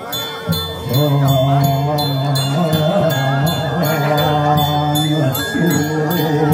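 Balinese ritual chanting: several voices singing long, slowly wavering tones in unison, swelling about a second in, over a steady metallic clinking of about three strikes a second.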